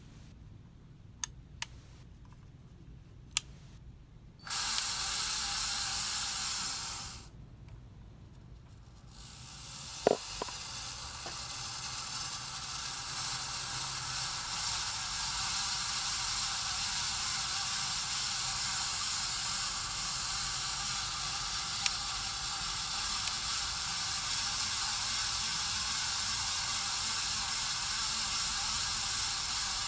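Casablanca Spirit of Saturn ceiling fan running on bad bearings, a steady hissing noise. It cuts in suddenly for a couple of seconds and stops, then builds up over several seconds as the fan comes up to speed and holds steady. A few sharp clicks sound in the first seconds and a few more later.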